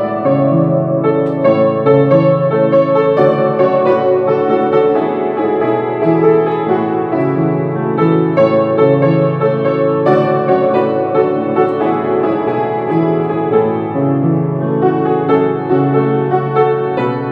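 Background piano music: a flowing line of notes over low bass notes that change every second or two.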